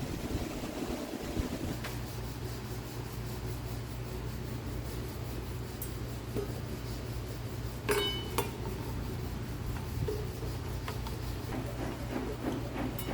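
Metal being rubbed or filed over a steady machine hum, with a sharp metal clink that rings briefly about eight seconds in, a smaller clink just after it, and a run of quicker strokes near the end.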